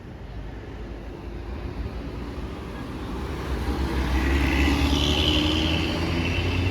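A road vehicle passes close by. Its low engine rumble swells from about halfway in, with a higher hiss at its loudest.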